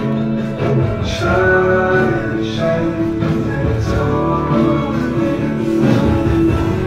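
Background music with held notes at several pitches.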